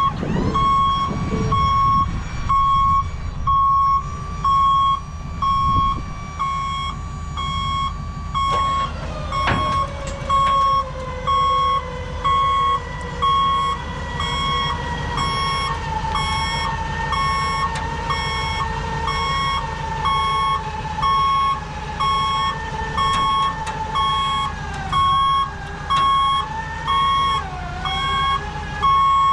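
Backup alarm on heavy equipment beeping steadily, about one beep a second, over a running engine. About nine seconds in there is a sharp knock, after which a machine whine slowly drifts down in pitch while the beeping continues.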